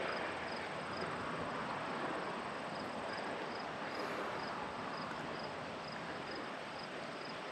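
Steady outdoor background noise with the faint chirping of insects, a high pip repeating about three times a second.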